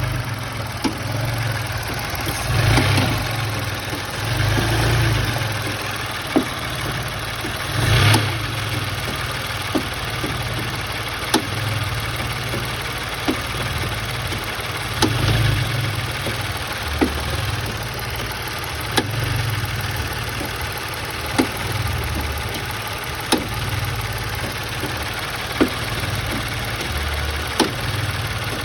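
Car engine idling, with a sharp knock about every two seconds, a noise typical of a loose engine mount.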